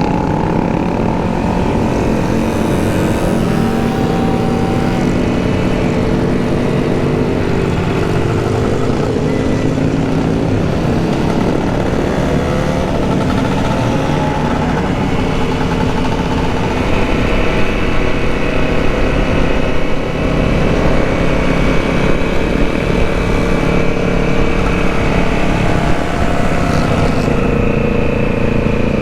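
Several motorcycle engines running together, their pitches shifting slowly as they rev. The sound gets somewhat louder about two-thirds of the way through.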